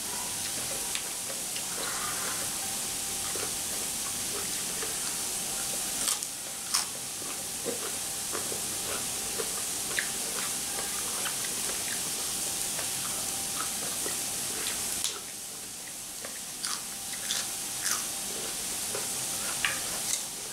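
Chewing and crisp crunching of grilled squid tentacles wrapped in fresh leaves, with scattered short crunches and a few sharper clicks, over the steady hiss of squid sizzling on a smokeless tabletop grill.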